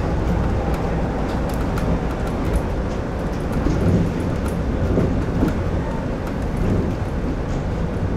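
Shonan Monorail suspended car under way, heard from inside the driver's cab: a steady running noise from its rubber tyres rolling inside the overhead steel box-girder track, with faint light clicks over it.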